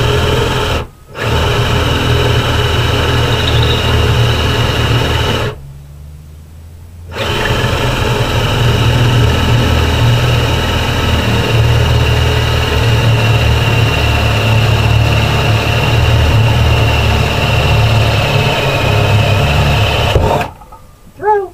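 Ryobi power drill running steadily while boring into wood, stopping briefly about a second in and again for about a second and a half around the middle of the first third, then stopping near the end.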